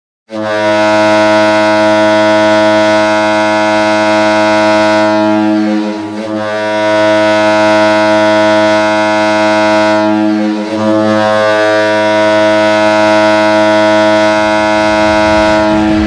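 Toledo Walleye ice hockey goal horn sounding three long, low blasts of about five seconds each, running almost into one another with only brief dips between them.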